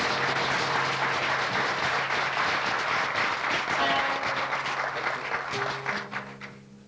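Audience applauding, the clapping dying away near the end, with a few plucked oud notes sounding under it.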